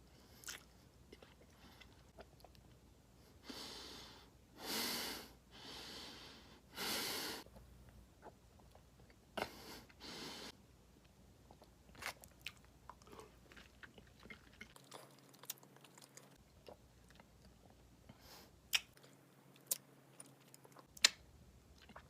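Close-up chewing of sour pickle balls: wet chewing and crunching, with sharp mouth clicks through the second half. Between about four and ten seconds in come five loud rushes of breath.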